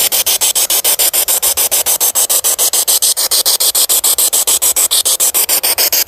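Spirit box (radio-sweeping ghost-hunting device) scanning through stations: a steady hiss of white-noise static broken by short gaps about ten times a second.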